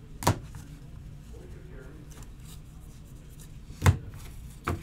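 Trading cards being handled over a table: a sharp tap about a third of a second in, a louder one near the end and a third just after it, as cards are knocked or set down, over a steady low hum.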